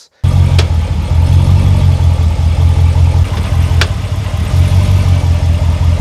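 Ram 1500 pickup's engine idling with a loud, deep, steady rumble. Two sharp knocks come about three seconds apart: the driveline clunk as the automatic transmission is shifted into drive and reverse, which the owner regards as a fault.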